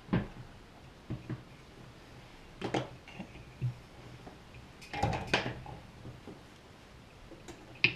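Scattered knocks and clatters of hand tools being set down and picked up on a workbench, with a louder, longer clatter about five seconds in.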